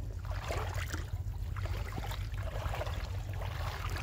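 Shallow pond water swishing and lapping as a person wades through it, pushing a metal pot along the surface, over a steady low rumble.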